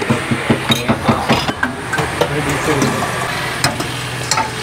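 Steel tea-stall utensils (cups, ladle and pans) clinking and knocking against each other and the pots as chai is made: rapid clinks in the first couple of seconds, then scattered ones, over a steady low hum.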